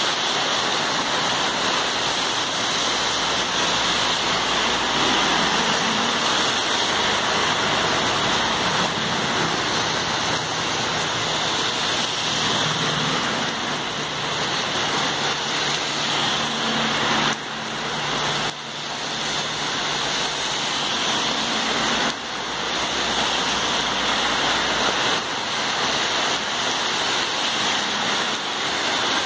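Heavy rainstorm: a steady, dense hiss of rain pouring onto the road and pavement, with a car passing through the water on the wet road near the end.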